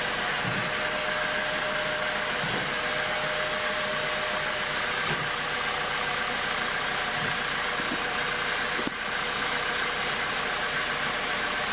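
Home-built sawmill running steadily with an even mechanical hum and whine, not cutting. A few dull low knocks come as a teak log is shifted on the carriage.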